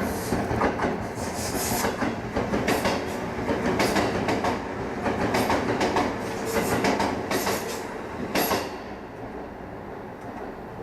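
A train running past, its wheels clacking over the rail joints again and again over a steady rumble; the clacking stops about nine seconds in, leaving a quieter rumble.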